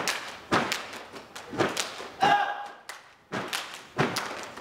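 Step team stepping: foot stomps and hand claps in an uneven, syncopated rhythm, roughly two sharp strikes a second. A short shouted call about two seconds in.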